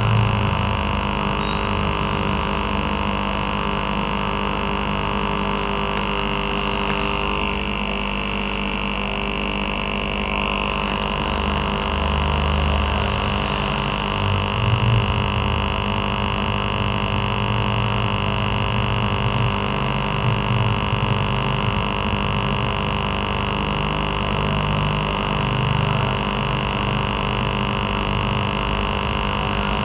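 Aquarium air pump (aerator) running with a steady electric hum, a dense set of even tones over a constant hiss.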